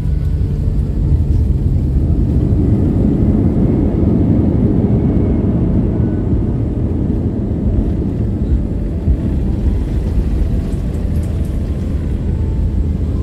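Cabin rumble of an Airbus A321-211 jetliner rolling down the runway after touchdown, with engine and wheel noise as it decelerates. The deep rumble swells a few seconds in, then eases a little as the aircraft slows.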